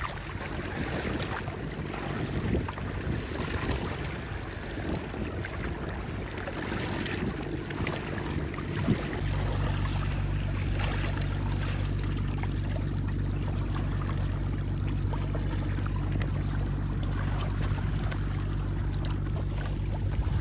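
Hands splashing and sloshing river water while rinsing a rusty telescope tube, with small knocks of metal against the water. About nine seconds in, a steady low engine drone sets in abruptly and continues under the lapping water.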